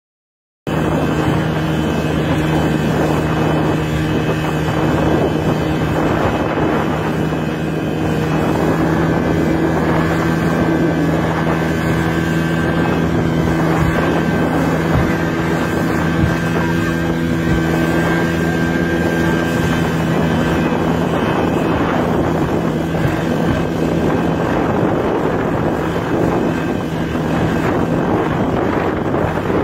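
Speedboat engine running steadily at speed, with wind on the microphone. It starts abruptly under a second in.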